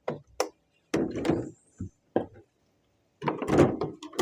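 Hard plastic clicking and knocking as a seed-starter humidity dome and its airflow vent are handled and fitted onto the tray, in several short clusters.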